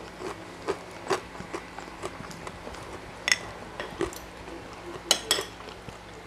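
Spoon and fork clicking and scraping on ceramic plates in irregular clicks, with chewing between. The sharpest clinks come about three seconds in and twice just after five seconds.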